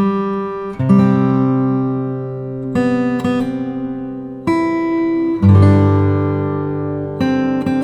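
Background music: an acoustic guitar playing slow chords that ring out, a new chord every second or so.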